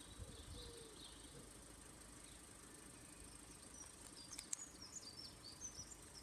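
Near silence with faint small-bird chirps, a quick run of them about four seconds in, over a faint steady high-pitched tone.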